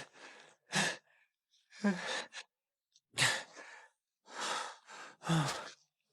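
A young man's breathy vocal efforts: a string of about six short gasps, sighs and strained grunts, each cut off cleanly with silence between them.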